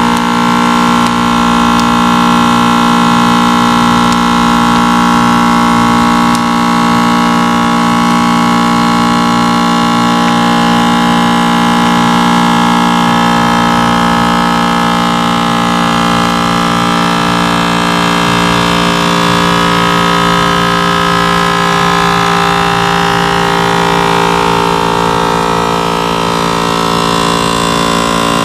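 Household vacuum sealer's pump motor running steadily as it sucks the air out of the sealing bag, a loud hum with several fixed tones. The pitch sags slightly about three-quarters of the way through.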